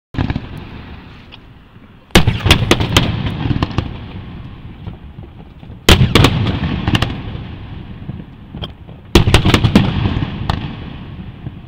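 Aerial fireworks shells bursting: three volleys, about 2, 6 and 9 seconds in, each a quick string of sharp bangs followed by a rumble that dies away.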